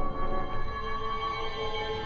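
Background music of slow, long held notes, with a low rumble beneath.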